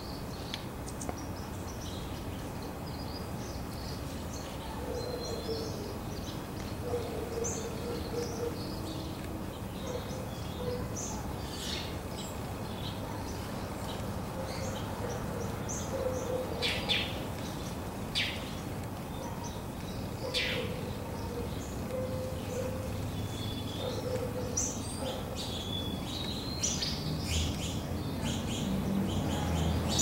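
Small songbirds giving short chirps and calls, scattered throughout and busier near the end, over a steady low hum of distant traffic.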